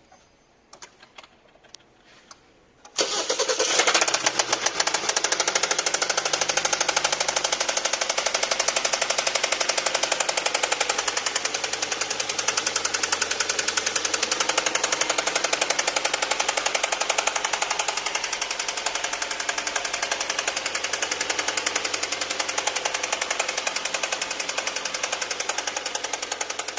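2021 Hyundai Sonata engine starting about three seconds in, after a few faint clicks, and then running with a loud, fast, even knocking. The knock is the fault being shown on a car with under 7,000 km.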